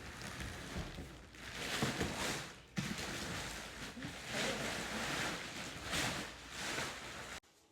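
Rustling and handling of a pack-and-play portable crib being set up, in uneven swells of noise with a few knocks, cutting off suddenly near the end.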